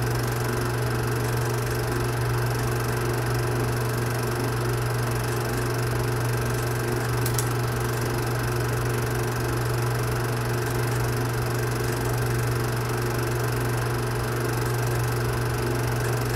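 Steady drone of a running film projector, with a strong low hum and an even mechanical whir.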